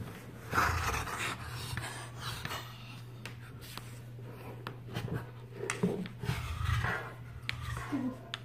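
A Bernese Mountain Dog mouthing and chewing a red rubber handle ball, its teeth and lips rubbing and clicking on the rubber, while it breathes hard. The scraping and clicking come in irregular bouts, busiest about half a second in and again between five and seven seconds.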